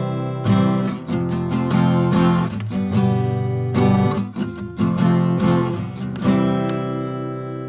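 Acoustic guitar strumming chords in an intro music piece, the last chord left ringing and fading near the end.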